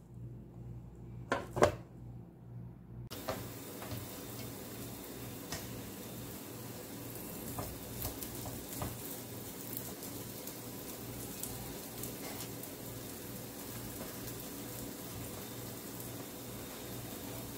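Two sharp metal clanks about a second and a half in, then grated-cassava patties frying in oil in a pan: a steady sizzle with scattered small pops and crackles. A low pulsing hum runs underneath.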